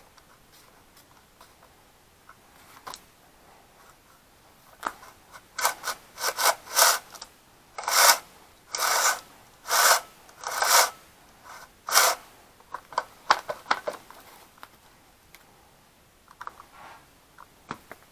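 The chain of a Sterwins petrol chainsaw is being pulled along its bar by hand while its tension is set. It makes a run of about a dozen short rasping strokes, starting about five seconds in and lasting some eight seconds, followed by a few light clicks.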